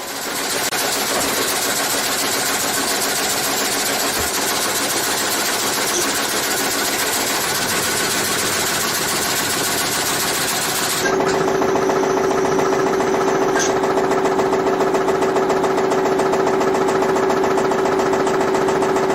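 Sawmill machinery running steadily. About eleven seconds in the sound changes abruptly to another machine with a steady hum.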